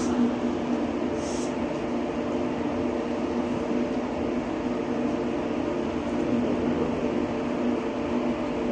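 Electric train standing at the platform, its onboard equipment giving a steady hum of several level tones. A short hiss comes about a second and a half in.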